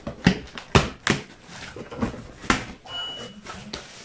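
Corrugated cardboard shipping box being pulled open by hand: the flaps rustle and crackle, with several sharp knocks as the cardboard is bent and the box shifted on the table. A brief thin high squeak comes about three seconds in.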